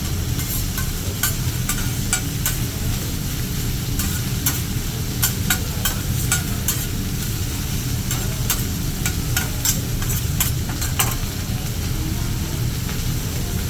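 Hibachi chef's metal spatulas clicking and scraping on a flat-top teppanyaki griddle while food sizzles, over a steady low rumble. The clicks come in irregular runs and stop about 11 seconds in.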